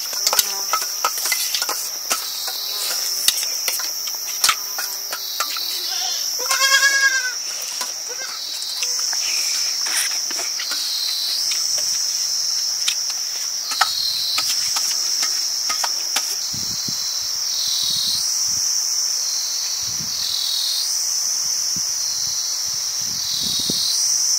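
Insects shrilling in a steady high chorus that swells and dips about every two seconds. A goat bleats once, a wavering call, about seven seconds in, and there are scattered light clicks.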